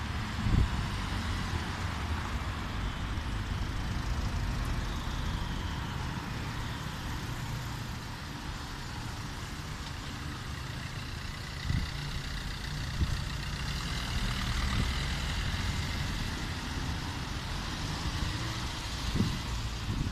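An RET city tram approaching along its track toward the stop, mixed with passing street traffic: a steady rumble and hiss, with a faint whine rising and falling in the second half. A few brief low thumps of wind on the microphone.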